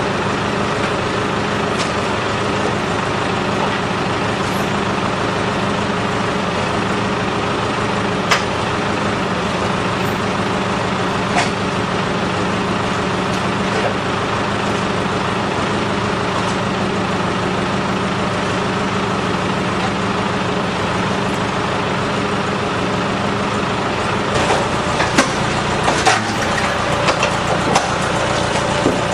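A machine runs steadily while the crushed car's roof is being cut off. From about 24 seconds in come a series of sharp snaps and crunches.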